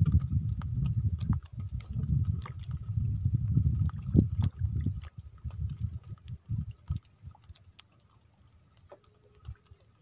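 Gusting wind and water noise around an open outrigger boat at sea, with small ticks and rubbing as a fishing handline is hauled in by hand. The rumble is loud at first and dies down about halfway through.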